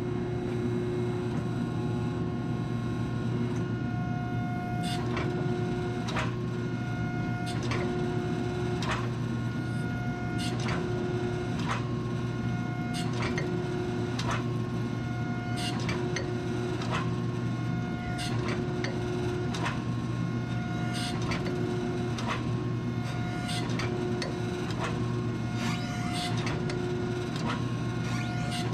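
A 100-ton hydraulic forging press running: its pump motor hums steadily while the ram repeatedly squeezes hot round bar. A higher whine swells briefly every couple of seconds with each press stroke, and sharp clicks come about once a second.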